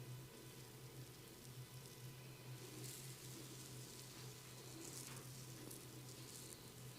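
Faint crackling rustle of fingers rubbing and scratching through hair and scalp during a head massage, with a few brighter crackles, over a steady low hum.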